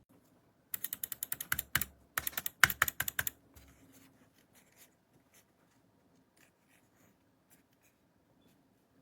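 Two bursts of rapid plastic clicking from computer buttons or keys, about ten clicks a second, each lasting a little over a second, then a few faint scattered clicks.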